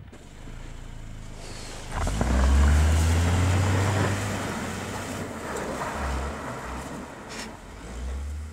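Honda Fit 4WD's engine running under load as the car plows through deep snow, with its tyres churning snow; a loud, steady low rumble sets in about two seconds in and eases a little towards the end.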